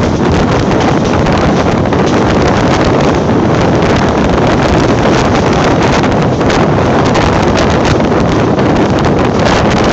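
Wind buffeting a microphone held out of the window of a fast-moving Pakistan Express passenger coach, over the steady running noise of the train on the track.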